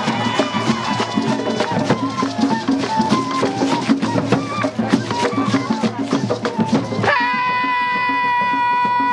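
Cumbia music: fast shaken rattles and drums under a pitched melody. About seven seconds in the percussion drops out and a single high note is held.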